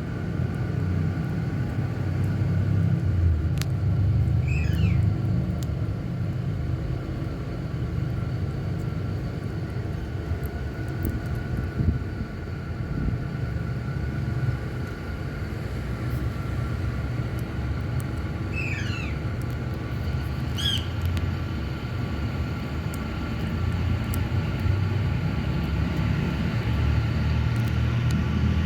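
A steady low rumble throughout, with a few short, high, falling calls of an Indian ringneck (rose-ringed) parakeet: one about five seconds in and two close together around nineteen to twenty-one seconds in.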